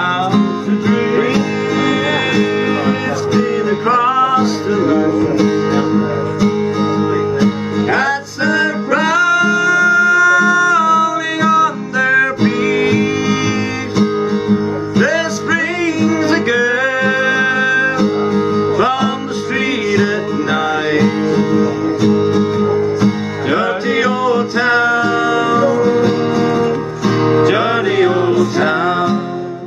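Live traditional music with guitar and a button squeezebox: held chords underneath, with a melody above that slides between notes.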